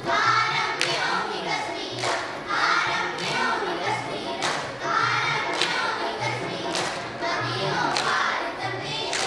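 A group of children singing a song together in chorus over a steady low beat, with sharp hand claps about once a second keeping time.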